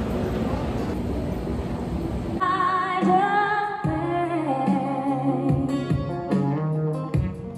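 A couple of seconds of indoor crowd noise, then live singing over a strummed acoustic guitar from a small performing duo.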